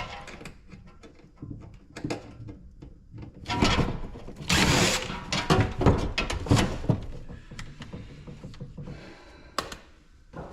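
Knocks, clicks and clatter of parts being handled and pried apart while a small ice maker is dismantled for scrap, with two longer scraping rattles about halfway through.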